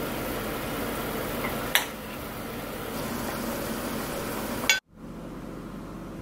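A metal ladle clinks twice against a ceramic soup bowl with a short ring as soup is ladled in, over a steady background hiss; the sound cuts off abruptly near the end.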